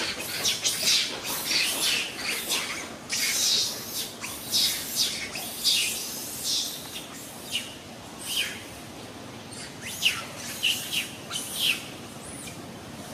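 Short, high-pitched chirping animal calls, repeated irregularly about once or twice a second, many dropping in pitch; they come thickly at first and more sparsely after the middle.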